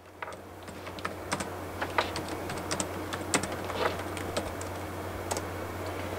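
Typing on an ASUS laptop's keyboard: quick, irregular key clicks over a low steady hum.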